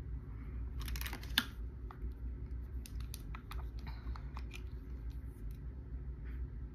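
Light, irregular clicks and taps from handling a mascara tube and wand, with a short rustle about a second in, over a steady low hum.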